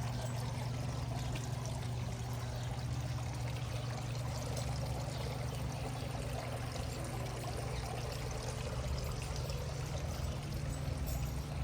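Water running steadily, a continuous pouring, trickling sound with a low hum beneath it.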